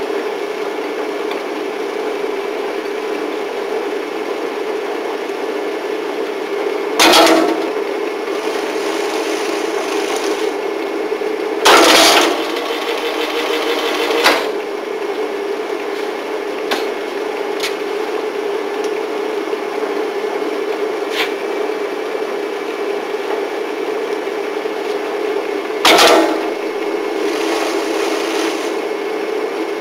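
F&G spiral coil binding machine running with a steady motor hum, broken by four loud knocks and clatters spread through, with a few lighter ticks between.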